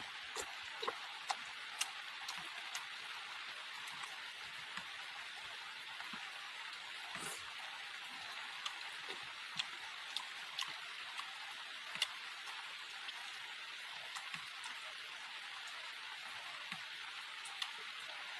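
Close eating sounds of a man chewing grilled pork and rice by hand: scattered short, sharp mouth clicks and smacks over a steady hiss.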